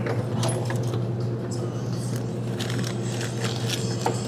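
Scattered light clicks and short rustles of small parts and wires being handled, over a steady low hum.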